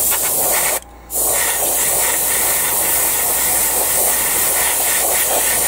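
Gravity-feed airbrush spraying paint: a steady hiss of compressed air that stops briefly about a second in, then carries on.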